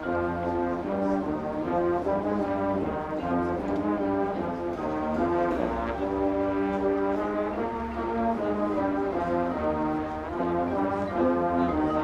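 High school marching band playing, its brass section holding full chords that shift every second or two.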